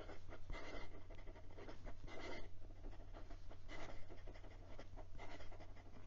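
Fine steel Schmidt nib of a brass pocket fountain pen scratching across notebook paper in quick writing strokes, a burst about every one and a half seconds, over a low steady hum.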